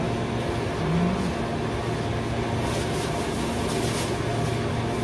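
Noisy, steady hum and whir of refrigeration machinery at a supermarket fish counter, a constant low drone with a few even tones running through it.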